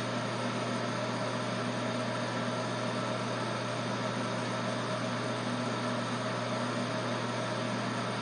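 Electric hair clippers running steadily with a low, even hum.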